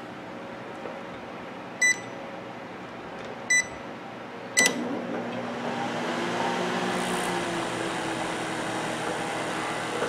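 Sharp Carousel microwave oven being started: two short keypad beeps, then a third beep with a click about four and a half seconds in, after which the oven runs with a steady hum. It runs without sparking or crackling, its damaged waveguide cover now replaced.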